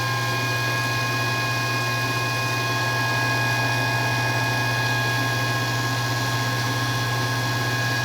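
Kuppet 1 HP garbage disposal running steadily with water flowing through it: a low motor hum with a few steady whining tones above it, under a louder, even hiss of running water.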